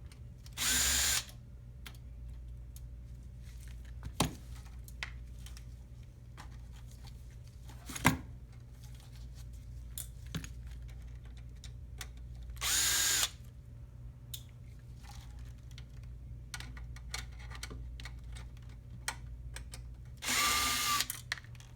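Cordless power Phillips screwdriver whirring in three short bursts as it backs out small screws from a car navigation unit, with a few light clicks and knocks between bursts.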